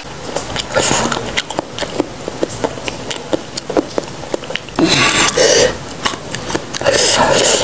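Close-up chewing of raw unripe pisang batu banana dipped in rujak sambal: a rapid run of small crunches and wet clicks, with louder noisy stretches about one, five and seven seconds in.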